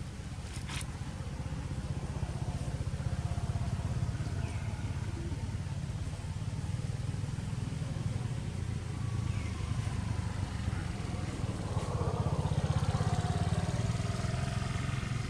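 A steady low motor rumble throughout, with a short wavering call about twelve seconds in and a few faint high chirps.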